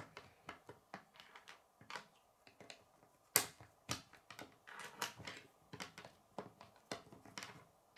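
K'nex plastic rods and connectors clicking and clattering as they are snapped together and knocked on a wooden tabletop, with one sharper snap about three and a half seconds in.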